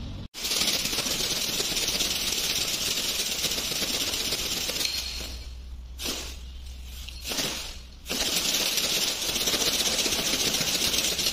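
Rustling and crackling of a homemade cat teaser made of shredded plastic strips as it is whipped through the air and dragged on the floor, easing off for a couple of seconds in the middle.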